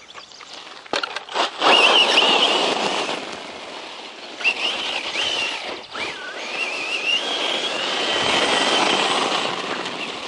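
Brushless electric motor of a 1/10 scale RC truck whining high as it is driven, the pitch rising and falling with the throttle, over loud rough noise from the tyres and drivetrain on the ground. It starts about a second and a half in, after a couple of clicks.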